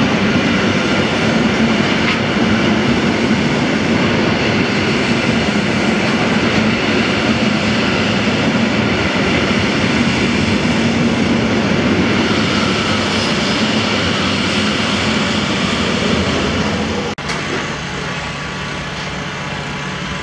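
Koleje Mazowieckie EN57AL electric multiple unit running along the platform close by, a loud steady rumble of wheels on rail with a faint whine. About three-quarters of the way through it gives way to a quieter, steady low hum as a Stadler Flirt ED160 electric train pulls in.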